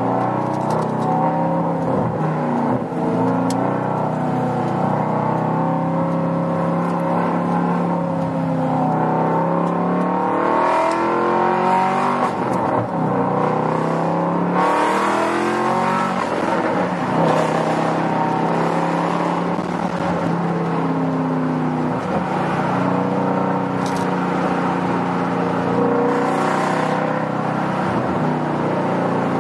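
Audi RS4 with an aftermarket Tubi exhaust, heard from inside the cabin while driving: a continuous engine and exhaust note whose pitch rises and falls as the car accelerates and eases off, with a few louder, harsher surges.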